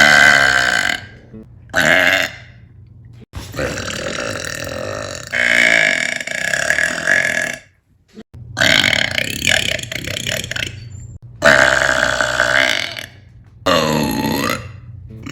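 A woman's loud, deep burps in quick succession, about six, several of them drawn out for two seconds or more, with short pauses between.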